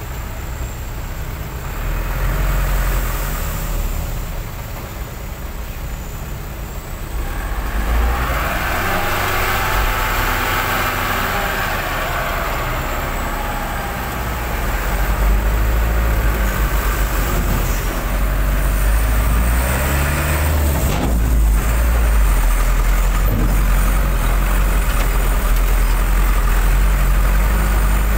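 Diesel dump truck engine running and revving as its tipper body is raised to dump a load of fill soil, getting louder about halfway through.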